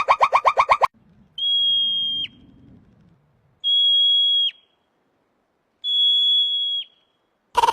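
An animal's call: a fast pulsing chatter that cuts off about a second in, then three long, steady, high whistles, each ending in a quick downward flick.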